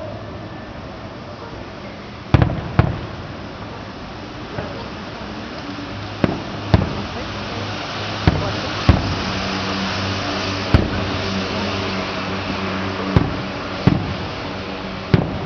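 Aerial fireworks shells bursting in the distance: about ten sharp bangs at irregular intervals, mostly in pairs about half a second apart, over a low steady hum.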